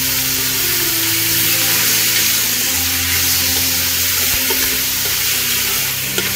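Raw chicken gizzards sizzling steadily in hot oil and garlic in an aluminium pressure cooker, stirred with a spatula.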